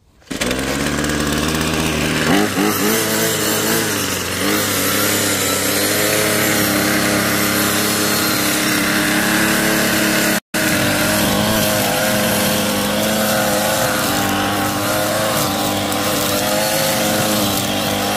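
Ryobi 25cc two-stroke string trimmer engine running fast, its pitch rising and falling a couple of seconds in and then held steady as the spinning line cuts grass. The sound breaks off for a split second about ten seconds in.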